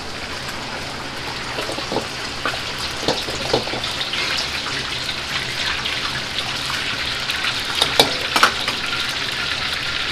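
Battered chicken deep-frying in a large pot of oil, a steady sizzling hiss, with the gas wok burners running. A ladle clinks and scrapes against an oiled carbon-steel wok a few times, loudest about eight seconds in.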